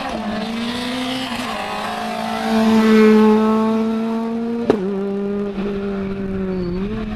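Rally car engine at high revs going past, loudest about three seconds in. A sharp crack comes about four and a half seconds in as the engine note drops, and the note climbs again near the end.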